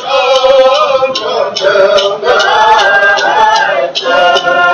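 A man's voice singing a Native American song in long, gliding held notes over a steady percussion beat of about two strokes a second.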